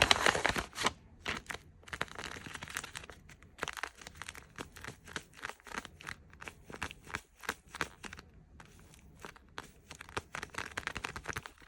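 Blind bag packaging crinkling and rustling in a run of irregular crackles as it is handled and opened, loudest in the first second and busier again near the end.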